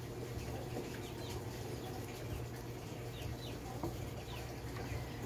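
Chickens clucking and peeping, a run of many short, falling high-pitched chirps, over a steady low hum.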